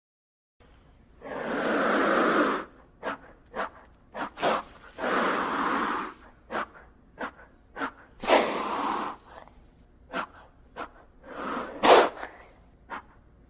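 Gila monster hissing: four long, breathy hisses of a second or more each, with short sharp puffs of breath between them.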